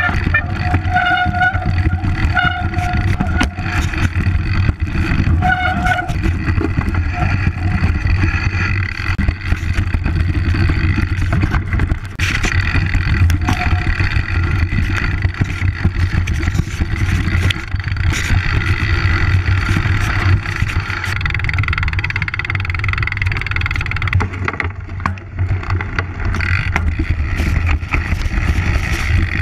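Wind rush and deep rumble on a mountain biker's body-mounted action camera during a fast trail descent, with a steady run of knocks and rattles from the bike over rough ground.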